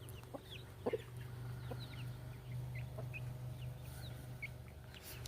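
Free-range backyard chickens clucking softly, with many short, high peeps scattered through, over a low steady hum.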